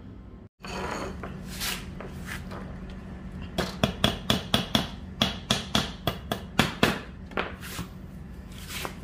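Hammer driving small nails through welded wire mesh into a wooden frame: a quick series of about fifteen sharp blows, four or five a second, in the middle stretch.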